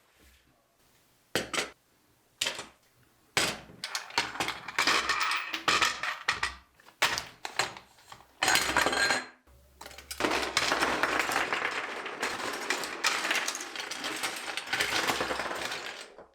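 Clinking and clattering of small hard objects: a few separate knocks in the first few seconds, then dense rattling clatter that runs almost without a break from about ten seconds in.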